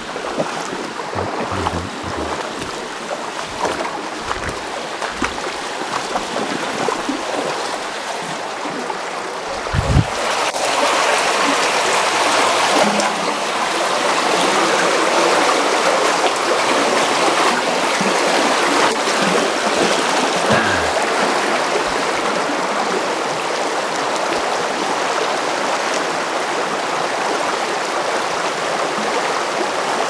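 Steady rush of water in a small mountain stream, getting louder about ten seconds in. A few low bumps on the microphone in the first ten seconds.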